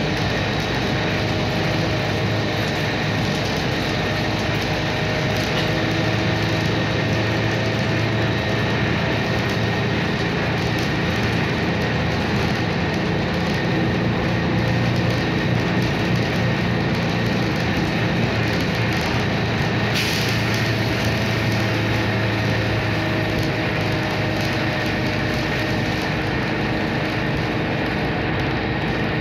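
Cabin noise inside a moving Zhong Tong articulated city bus: engine and road drone with a steady hum and faint high whine, and a single short click about twenty seconds in.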